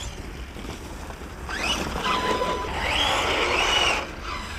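Large electric 1/5-scale RC monster truck driving on concrete: tyre hiss with a rising and falling whine, louder from about a second and a half in until near the end, over a low wind rumble.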